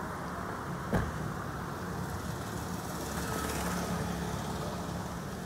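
Steady road traffic noise from passing vehicles, a little louder past the middle, with one sharp knock about a second in.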